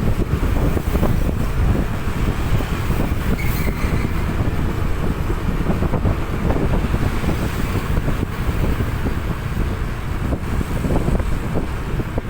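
Wind buffeting the microphone: a loud, fluttering low rumble with no steady tone in it.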